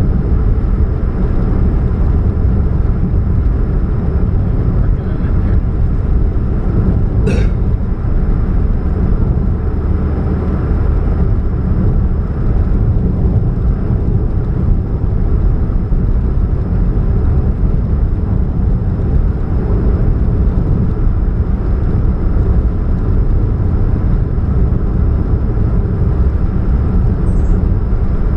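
2013 Chevrolet Spark's 1.2-litre four-cylinder running under way, a steady low hum and rumble of engine, exhaust and road noise, with one sharp click about seven seconds in. The hum is one the owner puts down to a catalytic converter leak.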